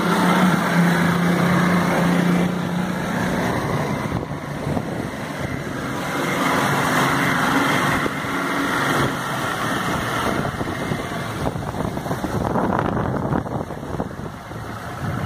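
Outboard motor of a small open motorboat running at speed, with water rushing past the hull and wind on the microphone. The engine eases off near the end.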